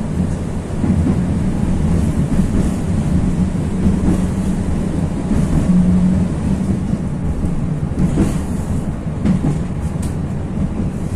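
71-623-02 (KTM-23) tram running along the track, heard from inside the passenger cabin: a steady low rumble and hum of the wheels and running gear, with a few sharp knocks in the last few seconds.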